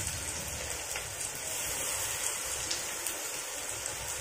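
Batter-coated flower fritters frying in a little oil in a frying pan: a steady sizzling hiss with a few small pops.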